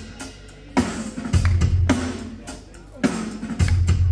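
Live band music led by a drum kit playing a steady beat: strong bass drum and snare hits, usually two close together, roughly every two seconds.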